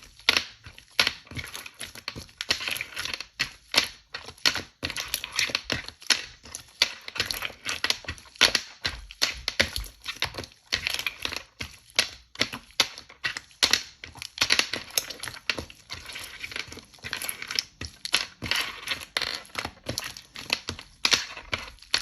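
Slime being pressed, squeezed and folded by hand, giving dense, irregular clicks and crackles, several a second.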